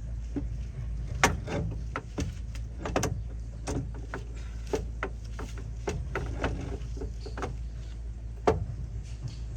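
Irregular clicks and knocks from hands-on work on a truck's gearbox, over a steady low hum. There are about fifteen, the sharpest about a second in and another near the end.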